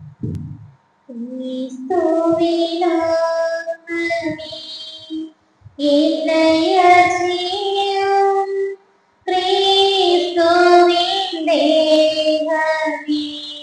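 A single high voice sings a hymn unaccompanied, in phrases with short breaks, starting about a second in. A faint steady tone hums underneath.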